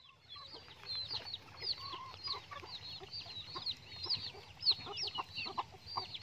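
A flock of young chickens peeping constantly, with many short, high, falling chirps overlapping and lower clucking calls among them.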